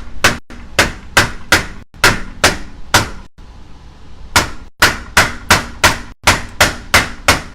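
Hammer blows on a wooden cushion board held against a new window frame, driving the too-tight frame into its opening. The blows come in a quick run of about two to three a second, stop for about a second midway, then start again.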